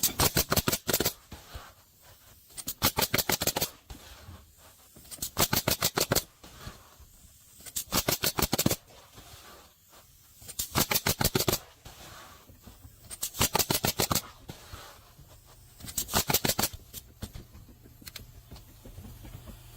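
Pneumatic roofing nailer firing in quick bursts of rapid shots. There are seven bursts, each about a second long, coming roughly every two and a half seconds.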